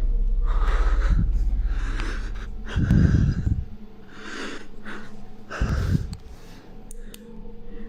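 A man breathing hard and fast, in short audible puffs less than a second apart. A low rumble runs under the first three seconds, with a heavier low thump about three seconds in and another near six seconds.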